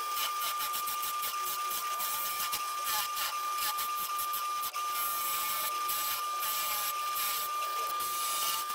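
Drill press running with a steady high whine while a Forstner bit bores into oak plywood, the cutting adding a continuous rough hiss.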